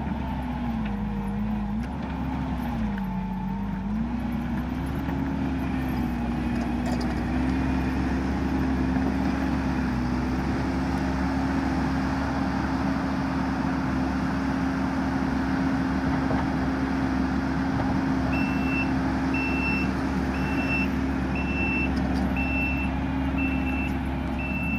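Kubota compact track loader's diesel engine working. Its pitch dips and rises under changing load for the first several seconds, then holds steady. Near the end its backup alarm beeps about once a second as the machine reverses.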